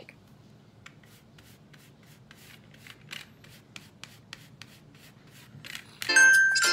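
A big paintbrush scrubbing chalk paint onto a sign in short, irregular strokes, a faint dry brushing and scratching. Near the end, music comes in with a bright melody.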